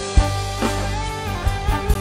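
Live band playing an instrumental passage: a drum kit with a few hard kick-drum hits over a steady bass and guitar line.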